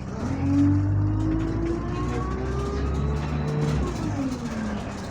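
Double-decker bus engine pulling away under load, with a whine that rises steadily with the revs, then drops back near the end as the bus changes up a gear.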